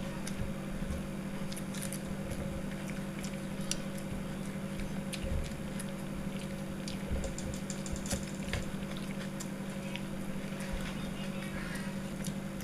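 People eating, with small clicks, ticks and chewing sounds scattered over a steady low hum.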